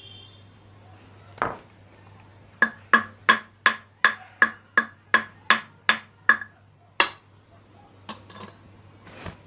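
Hammer tapping on a ceiling fan to knock the stator coil out of its metal body. One blow is followed by a quick run of about a dozen ringing metal strikes, about three a second, then a few lighter knocks near the end.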